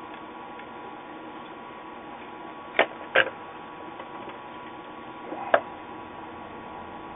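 Sharp knocks of a circuit board and hand tools being handled and set down on a workbench: two close together about three seconds in, and a louder one a couple of seconds later, over a steady background hiss.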